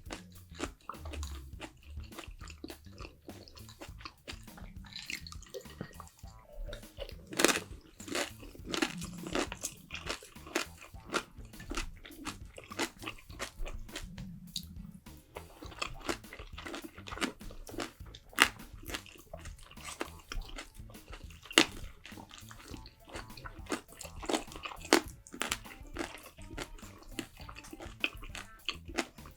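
Close-miked eating sounds: a person chewing and crunching Korean food, with many small sharp clicks and a few louder crunches.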